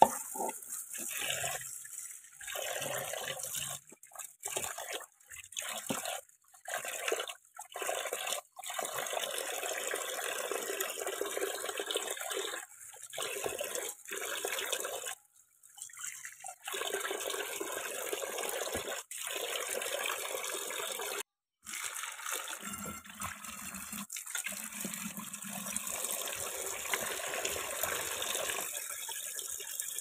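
Water running from a kitchen tap into a stainless steel sink, splashing over hands rinsing pieces of mackerel tuna, broken by several short gaps.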